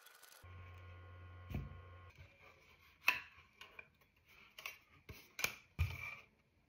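A faint steady hum at first, then a series of sharp clicks and clacks as the barndoor flaps on a Zhiyun Fiveray M20C LED light are folded and the light is handled. There are about six clicks, the loudest about three seconds in and again near the end.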